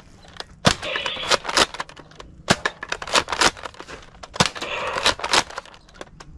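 Nerf foam-dart blaster firing a string of shots at uneven intervals, each a sharp pop, with darts clacking against plastic targets and knocking them over.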